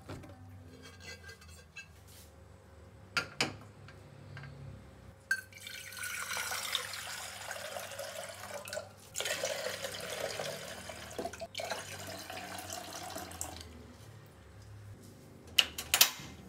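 Water poured in a steady stream into a glass pot, filling it for several seconds with a brief break partway through. A couple of sharp clicks near the end.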